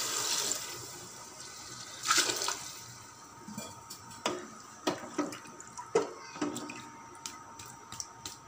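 Water pouring into an aluminium pressure cooker onto chana dal, fading out about a second in. A wooden spoon then stirs the pot, giving a string of sharp knocks against its side.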